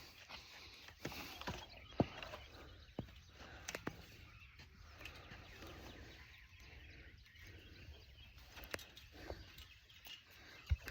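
Scattered clicks and knocks over a faint outdoor background as a chicken-coop door is worked open by hand, with a few sharper knocks about two seconds in and near the end.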